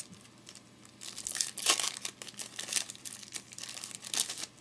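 Plastic foil wrapper of a Topps trading-card pack crinkling in the hands as it is opened and pulled off the cards, a run of crackles lasting about three seconds.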